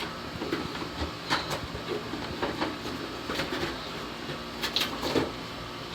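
Toy packaging being cut and pried open by hand: irregular snips, clicks and crinkles of plastic and cardboard, with a few louder ones near the middle and toward the end.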